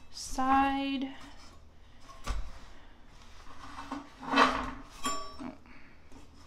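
Sheet-metal sunflower sculpture knocking and clinking against a metal table as gloved hands turn and position it: a sharp knock about two seconds in and a louder clatter a little after four seconds.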